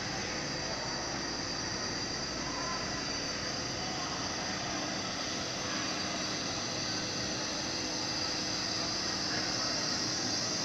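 Steady, even background noise with a faint hum underneath and no distinct events.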